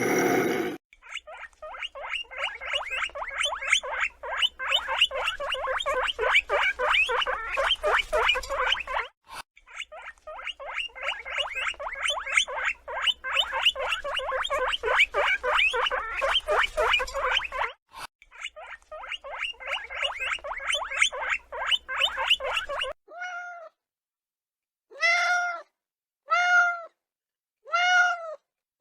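A long, fast run of dense, high chattering animal calls, broken twice by short gaps. It is followed near the end by a cat meowing about five times, each meow a separate call about a second apart.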